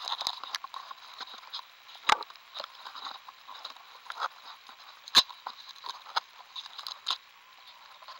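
Close handling noise of fingers working clear sticky tape and wires right against the microphone: crinkling, scraping and small clicks, with two sharp knocks about two and five seconds in.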